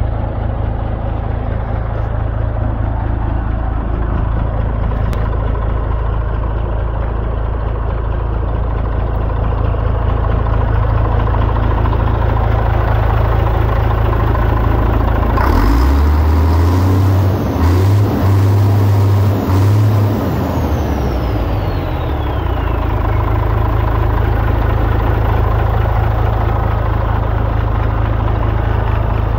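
DAF XF truck's diesel engine running at idle, its speed briefly raised in steps near the middle before it settles back, with a thin whistle gliding down in pitch as it returns to idle.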